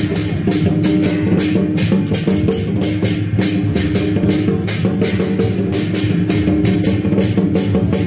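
Loud procession music with a fast, even drumbeat of about four hits a second over sustained pitched tones, with no break.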